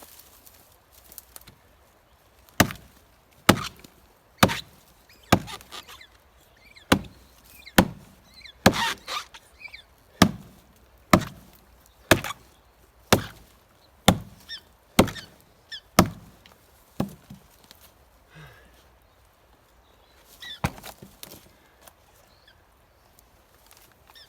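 An axe chopping firewood: about fifteen sharp strikes, roughly one a second, stopping about two-thirds of the way through, followed by a few lighter knocks.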